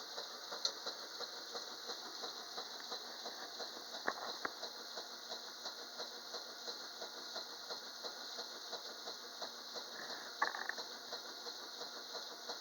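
Washing machine running faintly, with a light, even ticking a few times a second, two sharper clicks about four seconds in and a brief sharper sound near the end.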